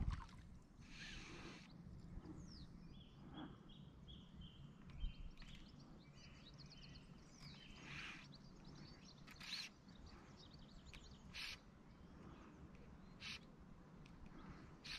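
Faint birdsong over quiet open-air ambience, with a few short soft hissing noises about every two seconds in the second half.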